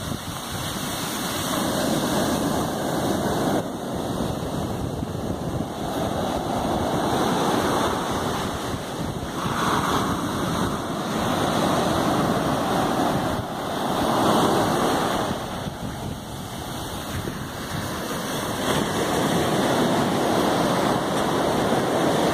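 Ocean surf breaking on the beach: a continuous rush of waves that swells and eases every few seconds. Wind buffets the microphone.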